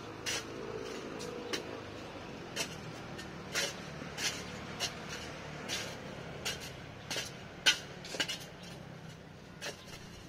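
A metal digging tool chopping and scraping into dry, hard-packed soil while a foundation trench is dug by hand: about a dozen sharp, uneven strikes, the loudest about three-quarters of the way through, over a faint low hum.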